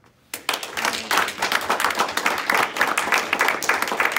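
Audience applauding, breaking out suddenly just after the start into dense, steady clapping.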